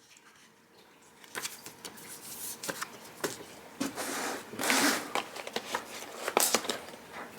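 Cardboard puzzle packaging and paper inserts being handled: scattered clicks and taps with bouts of rustling, the loudest rustle a little past the middle.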